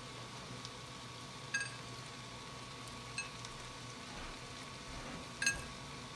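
Hard-boiled egg being peeled by hand: two sharp clinks with a short ring, about a second and a half in and again near the end, with a fainter tick between, as bits of eggshell drop into a bowl. A steady low hum and hiss lie underneath.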